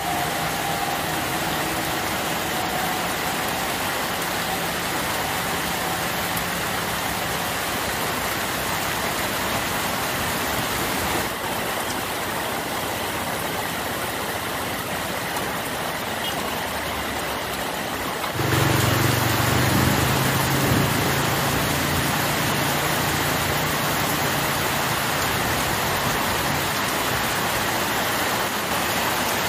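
Heavy rain pouring down steadily on leaves and ground. About two-thirds of the way through, a low vehicle engine rumble joins and keeps going over the rain.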